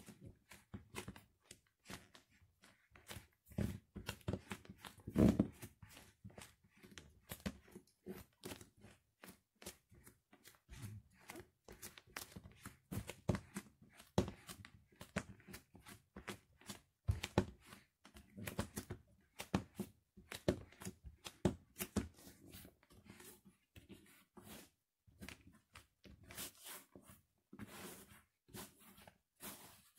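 White bread being crushed and torn under bare feet on a tiled floor: an irregular run of soft crackles and crumpling as the slices are stomped and ground apart, with a heavier thud about five seconds in.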